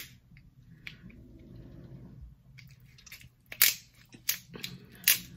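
Close-up eating sounds from snow crab legs: the shell being cracked and crunched open, with soft chewing. Several short sharp cracks come in the second half.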